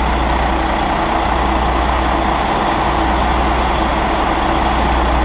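Diesel engine of a Caterpillar 980 wheel loader running steadily, a deep continuous hum under a broad mechanical noise.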